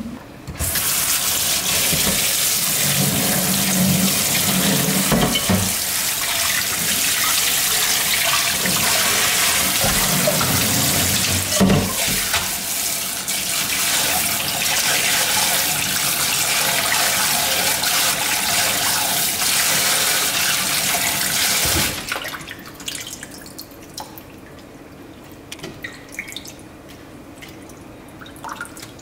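Kitchen faucet running hard into a pan of pumpkin leaves in a stainless steel sink while hands swish the leaves to rinse them. The tap is shut off abruptly well past the middle, leaving drips and small splashes as the leaves are lifted and squeezed out of the water.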